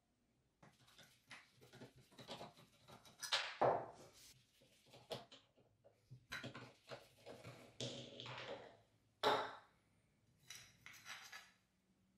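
Irregular metal clinks, scrapes and knocks as gloved hands handle and work the rusty metal body of an antique hand-cranked grinder being taken apart on a wooden workbench. The loudest knocks fall about three and a half and nine seconds in.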